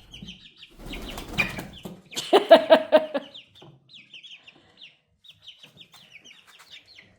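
Young chickens (five-week-old chicks) peeping steadily in short high cheeps, with a louder, lower rapid pulsed sound from about two to three seconds in.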